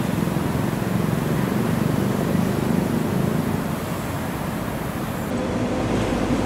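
Steady outdoor traffic noise, a continuous low rumble; about five seconds in, the background changes and a steady low hum comes in.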